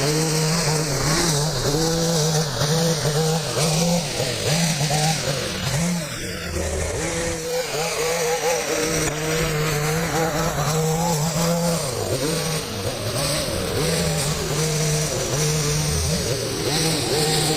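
Two-stroke gas hedge trimmer running at high throttle, its engine note dipping and recovering every so often as it works.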